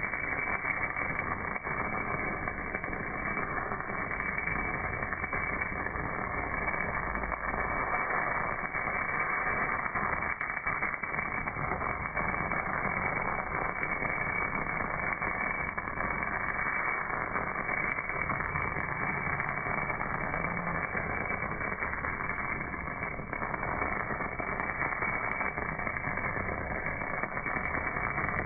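MAG welding arc burning on a cast part: a steady crackling hiss with scattered small pops.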